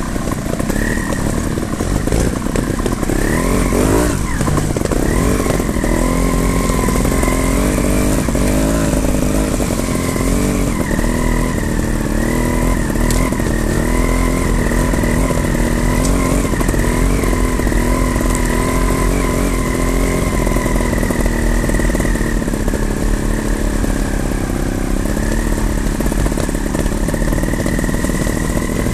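Trials motorcycle engine running at low revs, its pitch wavering up and down with the throttle, with a quick rev up and back about four seconds in.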